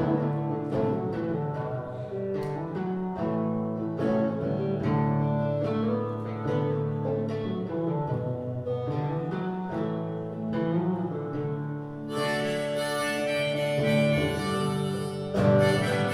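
Live acoustic guitar, picked and strummed in an instrumental interlude; about three-quarters of the way through, a harmonica on a neck rack comes in with long held notes over the guitar.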